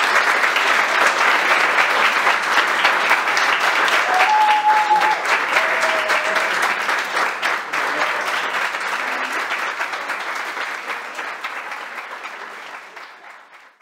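Audience applauding, a dense clatter of many people clapping, which dies away over the last few seconds.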